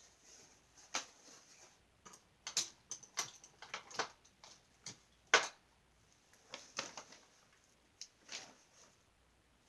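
Paintbrushes and painting supplies being handled: scattered, irregular light clicks and taps, the loudest about halfway through.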